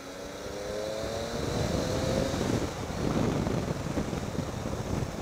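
Triumph Tiger 800 XCx's three-cylinder engine rising in pitch as the motorcycle accelerates for about two seconds. Then wind and road rumble build and grow louder.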